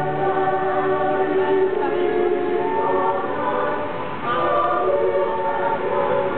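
Choir singing slow, held chords.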